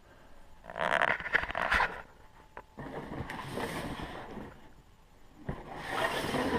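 Packaging rustling and crinkling as a pair of inline skates is unwrapped and lifted out of its box, in three bursts, the loudest about a second in.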